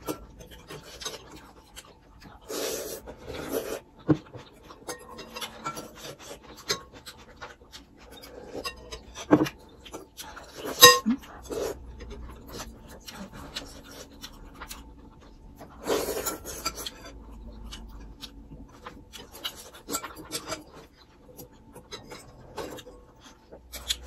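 Two people eating noodle soup: noodles and broth slurped in short noisy bursts, with spoons and forks clicking and clinking against glass bowls. One sharper ringing clink of metal on glass comes about 11 seconds in.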